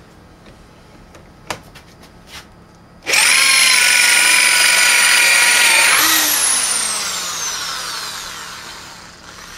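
Corded electric drill boring a hole into a wooden block held in a vise: after a couple of light clicks, the drill starts about three seconds in with a loud, steady high whine. Near the middle its pitch jumps up briefly, then it winds down slowly in a long falling whine.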